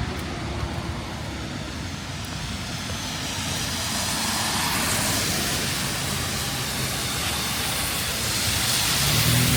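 Traffic passing on a rain-wet street: the hiss of tyres on the wet road swells about halfway through, and a vehicle's low engine hum grows near the end.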